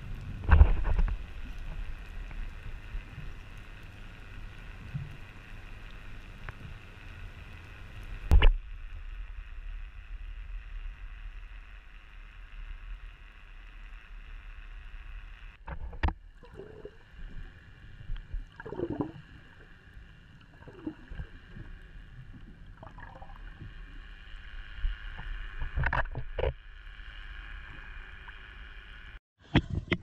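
Muffled underwater sound picked up by a submerged camera: a steady low rumble and hum, with a few dull knocks, the loudest near the start and about 8 seconds in.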